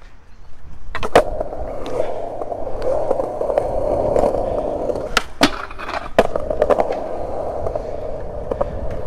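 Skateboard wheels rolling over concrete in a steady rumble, with sharp clacks of the board about a second in and several more around five to six seconds in.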